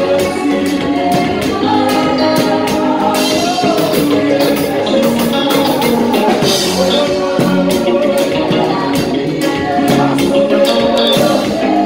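Live gospel band music: a drum kit played in a steady groove with frequent cymbal and hi-hat strokes, over keyboard and singing.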